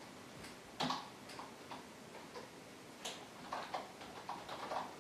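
Typing on a computer keyboard: irregular keystroke clicks, with one louder clack about a second in and a quicker run of keys near the end.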